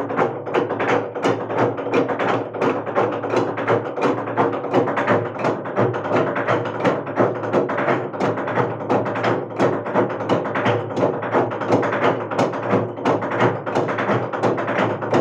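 Naga log drum, a long hollowed tree trunk, struck by a row of men with wooden beaters: a steady, fast rhythm of wooden knocks, about three to four strokes a second, the many beaters overlapping into a dense clatter.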